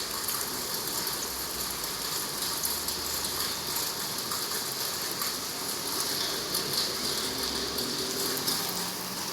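Storm rain and wind: a steady hiss with a dense crackle of raindrops.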